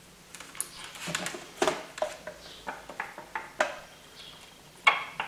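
Steel diesel glow plugs and multimeter probe tips clinking and tapping against each other as they are handled, an irregular run of small knocks, the louder ones with a brief metallic ring. The loudest clink comes near the end.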